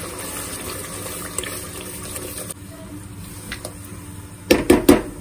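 Masala of oil, tomato and spices sizzling and bubbling in a nonstick pot as yogurt is stirred into it with a spatula; the steady hiss eases about halfway. Near the end comes a quick cluster of loud knocks.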